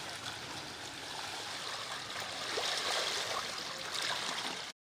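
Shallow floodwater swishing and splashing as a bicycle's wheels and a rider's feet move through it. It grows louder a little past halfway, then cuts off abruptly near the end.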